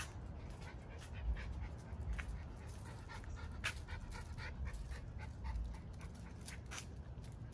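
Miniature schnauzer panting, with scattered short clicks and scuffs.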